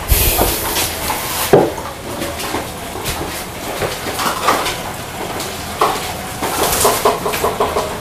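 Scattered knocks and light plastic clatter as a crow handles a plastic cup toy on a wooden pallet, with one sharp knock about a second and a half in and bursts of rustling near the start and later on.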